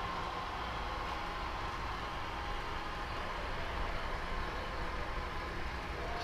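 Steady rolling rumble of a long train of G-scale model passenger cars running along garden-railway track.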